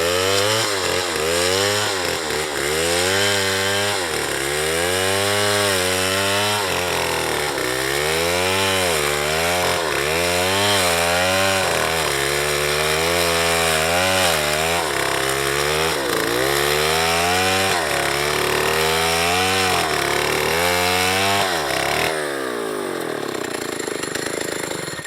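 Small chainsaw cutting into a tree, its engine pitch dipping and recovering about once a second as the chain loads up in the wood. Near the end it runs more evenly, then cuts off suddenly.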